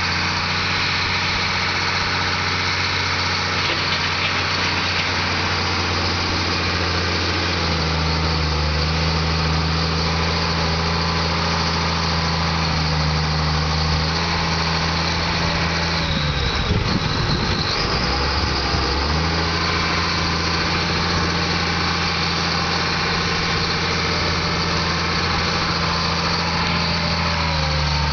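Diesel engine of machinery driving a RODA bulldozer blade, running steadily. Its pitch steps up about seven seconds in, and there is a brief dip with rumbling around the middle before it settles again.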